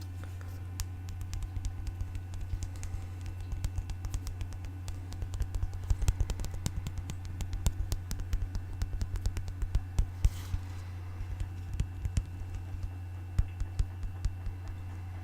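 Close-up ASMR tapping: irregular flurries of quick, sharp taps on a hard object, over a steady low hum.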